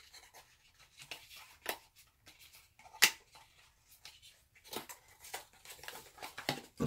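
Small cardboard light-bulb box being opened by hand: scattered rustles and scrapes of cardboard as the flap is lifted and the insert pulled out, with a sharp click about three seconds in.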